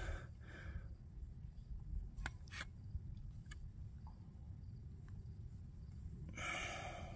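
A few faint clicks as buttons on a Labradar radar chronograph are pressed by hand, then a brief rustle near the end, over a low steady background rumble.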